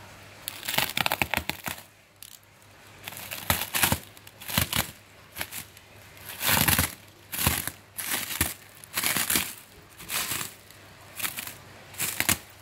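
Clear plastic stretch wrap being slit with a utility knife and pulled apart: a run of irregular crinkling, tearing rustles, each lasting under a second.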